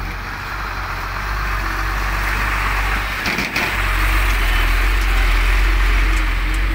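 Heavy diesel trucks running and rolling past close by, a deep engine rumble with tyre noise that grows louder as the next truck comes up, and a short knock about halfway through.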